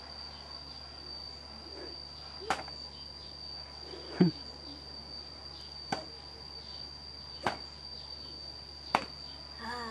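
A steady high-pitched insect drone, with five sharp cracks or knocks spaced about a second and a half apart, the loudest about four seconds in with a dull thud under it.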